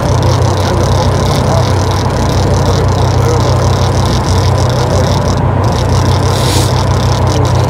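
Fishing boat's engine running steadily with a low, even hum.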